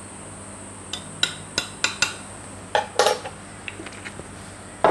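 Clinks and knocks of a metal spoon and a bottle being handled and set down on a kitchen counter: a quick run of light clinks, a heavier pair of knocks in the middle, a few faint ticks, and the loudest knock at the very end.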